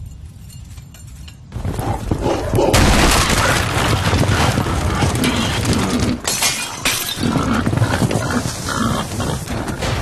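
A low rumble rises about a second and a half in, then from about three seconds a loud, dense din of a herd of wild boars stampeding, with grunting and things crashing and breaking.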